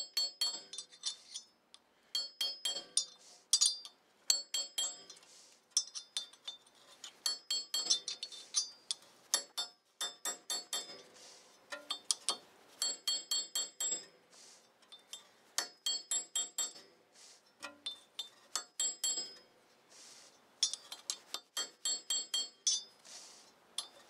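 Light, quick hammer taps on a fine chisel driven against the steel front hub dust cover of a 2007 Toyota Tacoma 4x4, metal on metal with a bright clinking ring. The taps come in short runs of several strikes with brief pauses between, working the cover loose around its rim.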